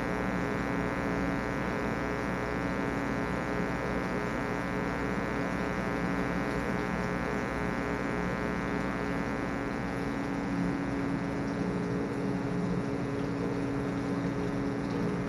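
Steady electrical hum and buzz with many overtones, unchanging throughout.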